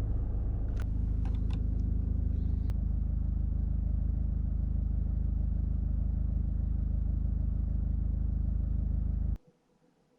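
Car engine idling steadily, with a few light clicks in the first three seconds; the sound cuts off abruptly near the end.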